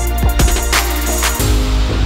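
Background music with a drum beat over a steady bass line.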